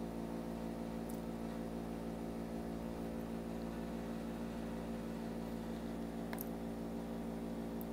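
Steady low electrical hum with an even buzz of many steady tones, the background noise of the recording setup, with a few faint clicks scattered through it.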